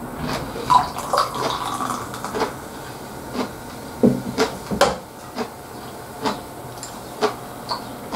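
Canned beer being poured into a glass, with the fizzing pour and several short sharp clicks as the can and glass are handled.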